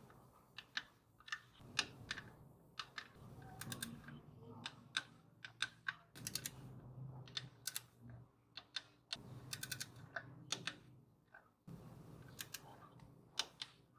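Ratcheting torque wrench clicking in short, irregular runs as the 10mm bolts of a lower engine oil pan are tightened to 11 Nm.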